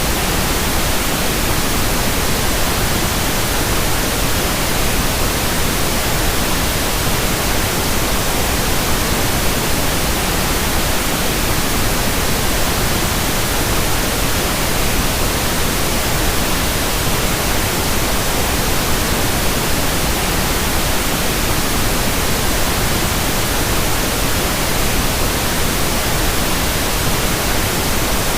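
Steady, unchanging hiss of synthetic masking noise spread evenly from low rumble to high hiss, with no tones or breaks, played to cover tinnitus ringing.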